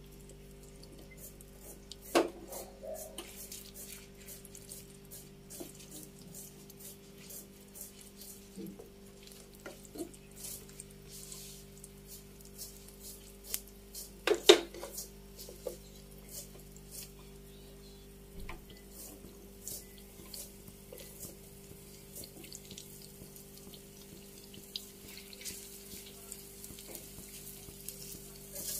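Potato sticks deep-frying in hot oil in a cast-iron pan, a steady sizzle with scattered crackling pops. Two sharp knocks stand out, about two seconds in and near the middle.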